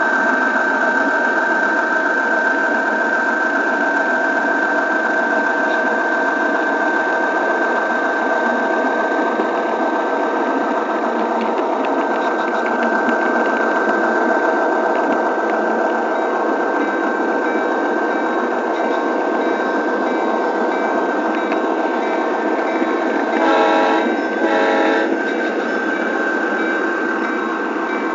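Model train running on the layout: a steady whir of the motor and wheels on the track, with two short horn blasts from the locomotive near the end.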